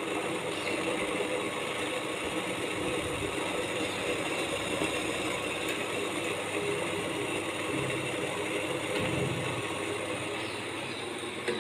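Steady hum of an induction cooktop running, with a pot of water simmering on it.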